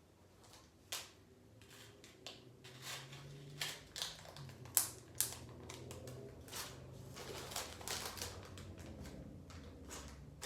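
Plastic packaging being handled, crinkling and crackling in irregular clicks and rustles as items are unpacked.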